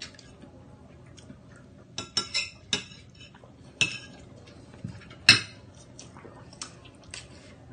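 Scattered short clinks and knocks of dishes and cutlery at a dining table, several in a cluster about two seconds in and the loudest about five seconds in.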